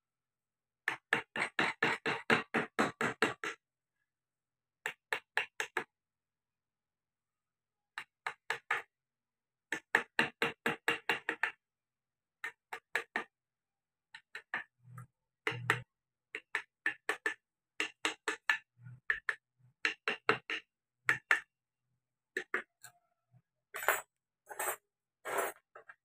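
Rapid runs of mallet strikes on a gouge chisel cutting into wood, about four or five knocks a second, with short pauses between runs while the carver roughs out a carved face.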